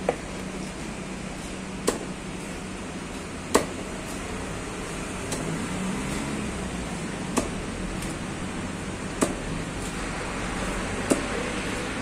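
Large heavy knife chopping through a fish on a wooden block, cutting it into steaks: six sharp chops, roughly every two seconds, over a steady background hiss.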